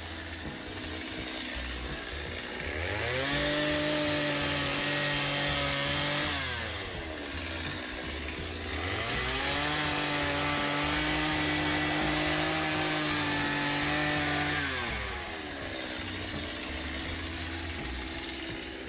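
Chainsaw engine revved up and held at high speed twice, about three seconds the first time and five seconds the second, dropping back to a lower idle in between and at the end.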